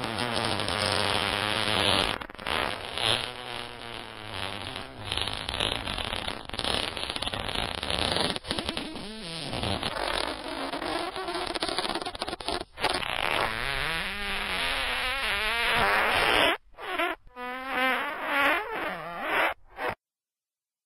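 A long string of buzzy, wavering farts, one running into the next. Near the end it breaks into several short separate farts, then cuts off suddenly.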